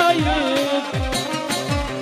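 Instrumental Bedouin dahiyeh music: a wavering melody line over deep, falling bass drum hits about twice a second.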